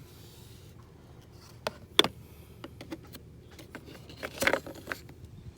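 Metal clicks and clatter of sockets being handled in a socket set, with one sharp click about two seconds in and a short burst of rattling clicks about four and a half seconds in.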